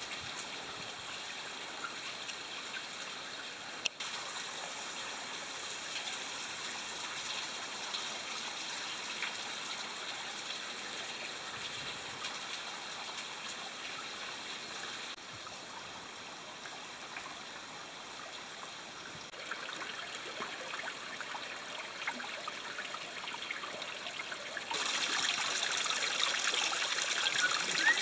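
Fresh water trickling steadily off a rock face, growing louder in the last few seconds.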